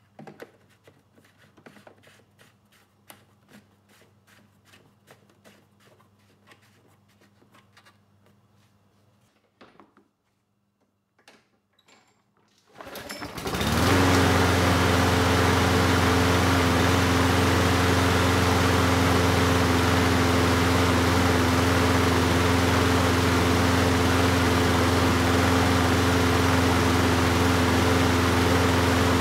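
Faint clicks over a low hum, then a machine starts up just before the halfway point and runs on with a steady loud drone, a few steady low hums over a broad hiss.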